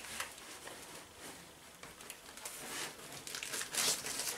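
Hands rummaging in a cardboard parcel, rustling and crinkling the packing, louder in the last second as a plastic-wrapped item is pulled out.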